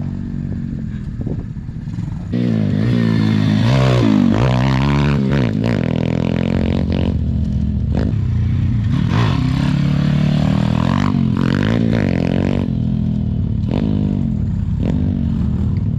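SSR pit bike's small single-cylinder four-stroke engine revving up and down again and again while riding, getting louder about two seconds in.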